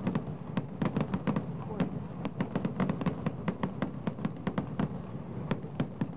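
Aerial fireworks shells bursting in rapid succession, a dense run of sharp bangs that thins out near the end.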